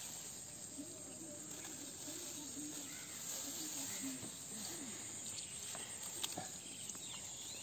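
Steady high-pitched chirring of insects in the surrounding field, with faint distant voices underneath and a couple of light clicks near the end.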